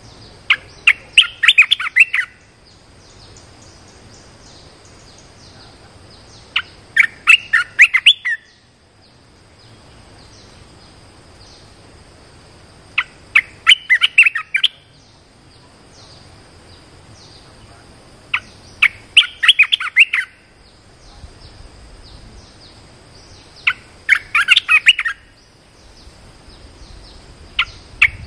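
A songbird sings short phrases of quick, bright chirping notes, each about two seconds long and repeated every five to six seconds, over a faint steady high-pitched hum.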